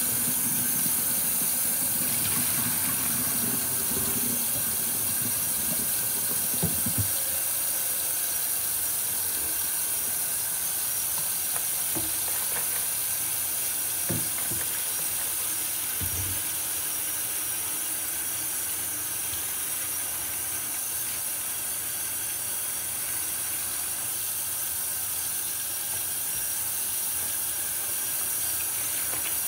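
Tap water running steadily into a stainless steel sink, a continuous hiss, while a wet sponge is rinsed and squeezed in the stream. A few soft knocks come from handling in the sink.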